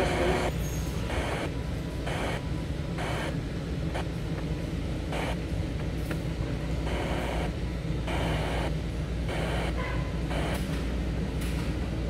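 Timex T618T clock radio's FM tuner being stepped up the band: bursts of static hiss come and go every second or so, with brief snatches of stations in between, over a steady low hum.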